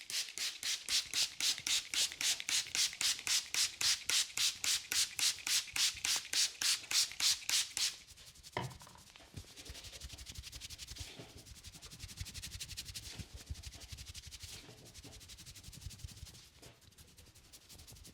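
Hands rubbing vigorously over hair and scalp in a head massage, with quick, even strokes about four to five a second. About eight seconds in the rubbing turns slower and softer, with a single sharp click just after the change.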